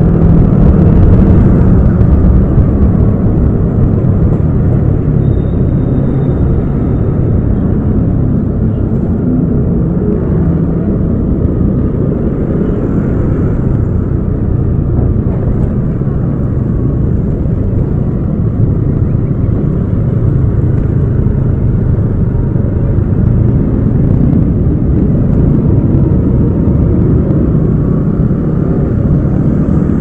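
Yamaha Aerox 155 scooter's single-cylinder engine running steadily under way in city traffic, a loud low drone. It eases off a little in the middle as the scooter slows among traffic, then picks up again toward the end.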